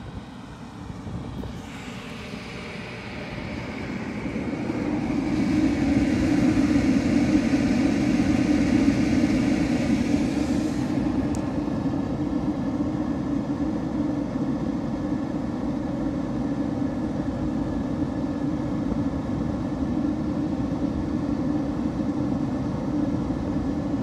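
Portable propane forced-air heater running, its fan and burner making a steady rushing hum that grows louder over the first few seconds and then holds.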